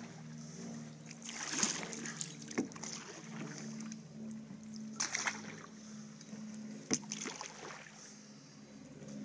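Canoe paddle strokes in water, a splash every few seconds, with a couple of sharp knocks, over a steady low hum.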